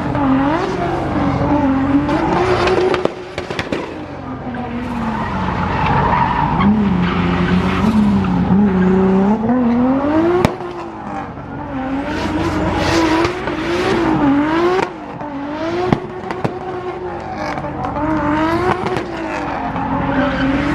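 Competition car's engine revving up and down repeatedly as it is driven hard, with tyres squealing and skidding. The revs drop off briefly about three times, near 3, 10 and 15 seconds in.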